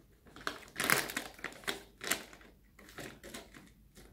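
Crinkling and clicking of a foil food pouch being handled, in a few irregular bursts, loudest about a second in.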